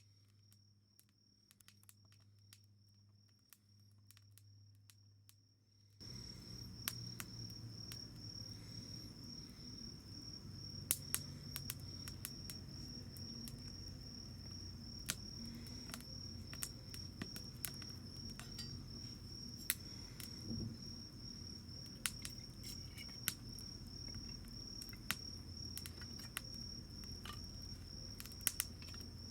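Campfire crackling, with scattered sharp pops, over the steady high chirring of insects. Everything gets louder about six seconds in.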